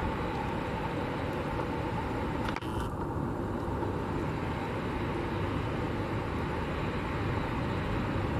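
Airbus A380's four turbofan engines at taxi power: a steady jet rumble and hiss with a faint steady whine, passing close by.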